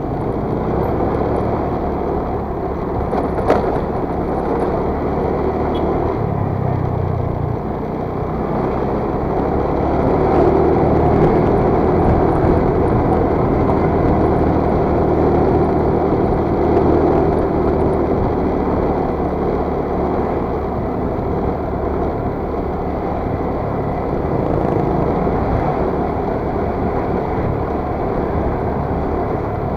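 Motor scooter engine running while riding, mixed with road and wind noise on the microphone. A single sharp click about three and a half seconds in, and the noise grows louder about ten seconds in.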